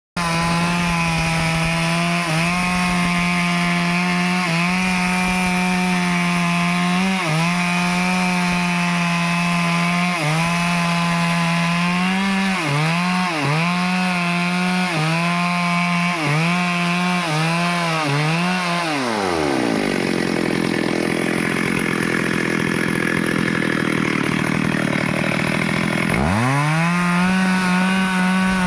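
Stihl chainsaw running at full throttle while cutting a teak tree, its engine pitch dipping briefly again and again as the chain loads in the cut; the dips come faster and closer together past the middle. Just before two-thirds of the way through, the revs fall away and the saw runs low and rough for several seconds, then revs back up to full speed near the end.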